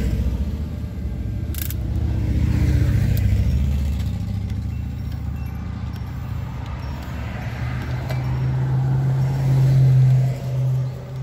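Electric motors and gearboxes of a 1/16-scale RC excavator whirring as its boom and arm raise and lower, a steady hum that grows louder near the end. A sharp click about one and a half seconds in.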